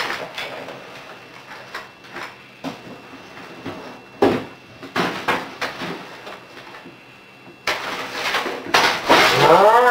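Scattered sharp knocks and clatter of a computer keyboard being banged, growing busier and louder near the end. In the last second a voice rises in pitch into a loud yell.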